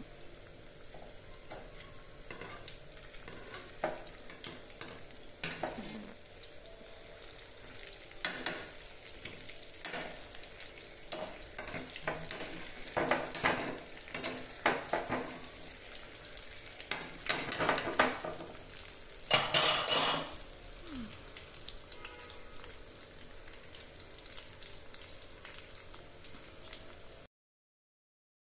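Battered potato sticks deep-frying in hot oil: a steady high sizzle with frequent crackles and pops, coming in heavier clusters through the middle. The sound cuts off abruptly near the end.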